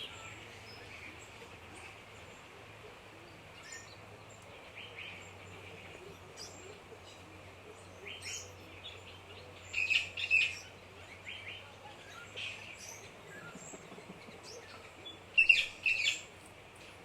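Rainforest ambience: several birds calling and chirping over a steady background hiss, with louder clusters of quick repeated chirps about ten seconds in and again near the end.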